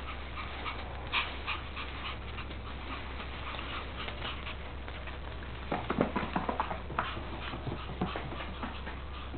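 Puppies making small whimpering sounds, with a burst of short knocks and scuffles about six seconds in, over a steady low hum.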